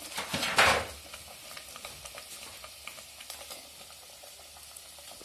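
Maida dough shell on a steel katori mould deep-frying in hot oil: a loud burst of sizzling as it goes into the oil, about half a second in, then steady crackling.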